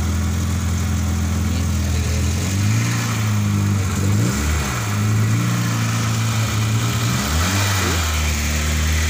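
Peugeot 405 four-cylinder petrol engine running, its speed rising and falling a few times. It now runs because the broken fuel pump wire that had cut the fuel supply has been reconnected.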